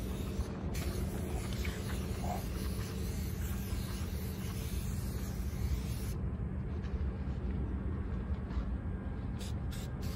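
Aerosol spray paint can (Rust-Oleum) hissing in one long continuous spray that cuts off about six seconds in, then a few short bursts near the end, over a steady low rumble.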